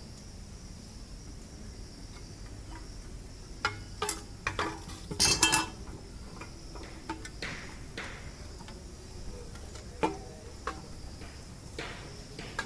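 Metal clinks and knocks as the electric water heater's outer drum casing is handled and fitted back over the tank, with a burst of clattering about five seconds in and scattered knocks after it.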